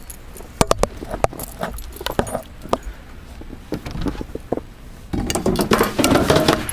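A bunch of keys jangling, with irregular clicks and knocks throughout that grow busier and louder near the end as a house door is opened.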